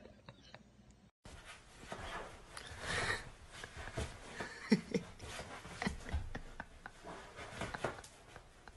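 Starting about a second in, rustling and irregular scratchy clicks as a cat clambers over a fabric sofa, claws and body against the upholstery. About halfway there are two short voice sounds.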